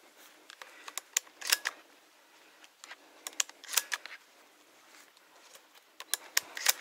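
Footsteps through dry forest leaf litter, with irregular sharp snaps and crackles of twigs underfoot; the loudest snaps come about a second and a half in, near four seconds, and near the end.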